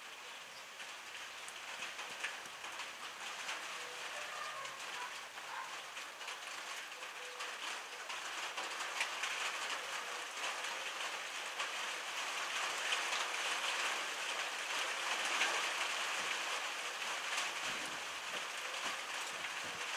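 Rain falling, a dense patter of many small drops that builds up heavier and louder over the first dozen seconds and then holds steady.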